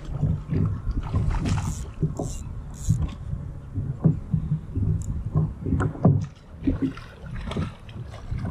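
Water slapping and knocking irregularly against the hull of a plastic fishing kayak on choppy water, with a few sharper splashes.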